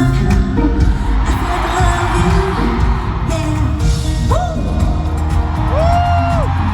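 Live K-pop concert music: a loud band with heavy drums and bass, opening on a sharp drum hit, and a sustained sung vocal line gliding on held notes.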